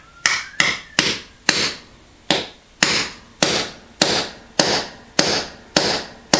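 Hammer striking a steel setting rod again and again, driving the wedge down inside a concrete floor anchor to set it. About a dozen sharp, ringing metal blows come at a steady pace of a little under two per second.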